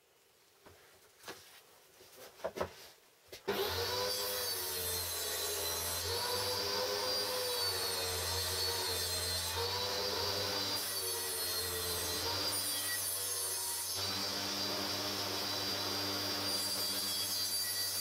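A few light clicks and knocks, then a table saw starts about three and a half seconds in and runs steadily. Its pitch sags and recovers several times as wood is cut.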